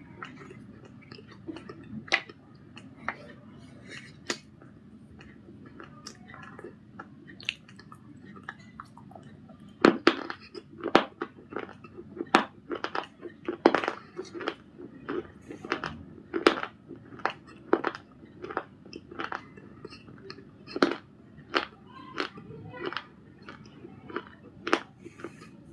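Close-up biting and chewing of brittle 'Punjab biscuit' pieces with white khadi paste. At first there are a few scattered crisp snaps; from about ten seconds in come rapid sharp crunches, two or three a second.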